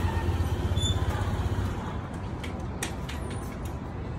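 Street traffic: a motor vehicle's low engine rumble that fades away a little under halfway through, with a couple of short high squeaks near the start and a few light clicks later.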